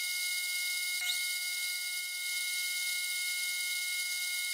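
Mini lathe running with the chuck spinning, its brushed motor giving a steady high whine.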